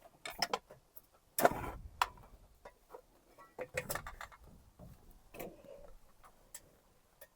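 Irregular knocks and clicks of hand work on wooden boards, one sharp knock about one and a half seconds in the loudest, with scattered smaller taps and rattles after it.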